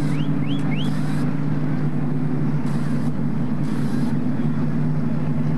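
Stock-car engine drone running steadily, with several short hissing bursts and three brief rising chirps near the start.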